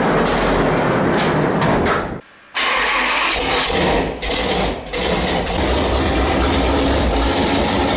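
Rock buggy engine running loud and steady as the buggy backs out of the shop, with a brief cut in the sound about two seconds in.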